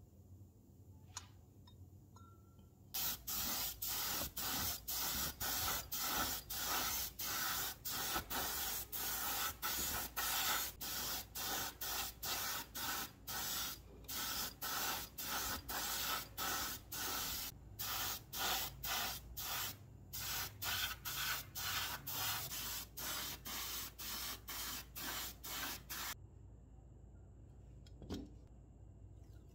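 Small gravity-feed spray gun hissing as it sprays paint in many short bursts, about two a second. It starts about three seconds in and stops a few seconds before the end.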